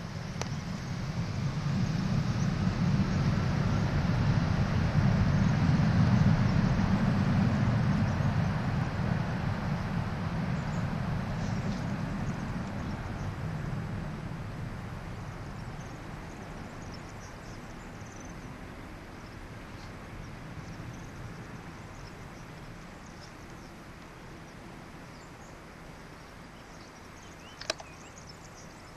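Boeing 757-200's twin Rolls-Royce RB211 turbofans at takeoff thrust. A loud jet rumble with a rising whine builds over the first few seconds, then fades steadily as the airliner rolls down the runway and climbs away. A single sharp click comes near the end.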